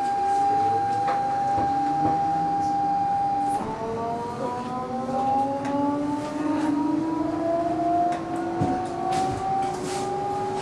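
Copenhagen S-train's electric traction drive whining. A steady tone gives way, a few seconds in, to several tones rising together in pitch as the train accelerates.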